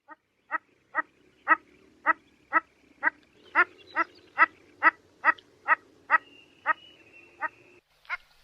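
A duck quacking in a long, even series of short quacks, about two a second, all at much the same loudness.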